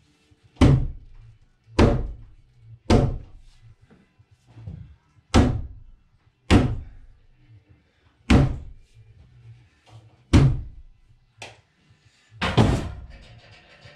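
Loud, sharp knocks, eight strong ones and a couple of weaker ones about one to two seconds apart, from the work of jacking a sagging floor beam up on a temporary post. A longer, rougher bang follows near the end.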